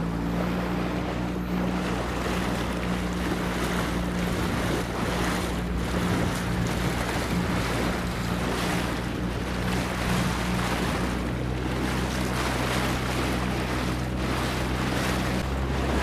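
Small boat's motor running steadily under way, with water rushing along the hull and wind buffeting the microphone.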